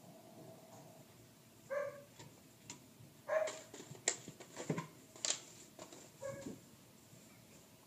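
Seven-week-old border collie puppies giving three short, quiet yips spread across a few seconds, with a few sharp clicks and taps in between.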